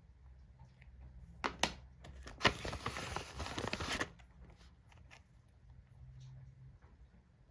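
Packaging being handled and opened: two sharp clicks, then about a second and a half of dense crackling as plastic or paper packaging is crinkled or torn, with light handling ticks around it.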